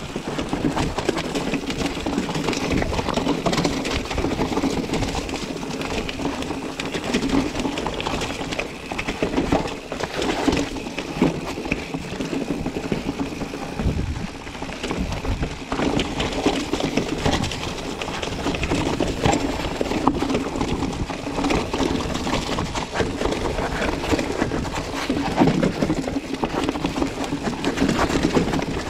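Mountain bike being ridden over rough ground: a continuous hum with frequent knocks and rattles from the bike and its tyres.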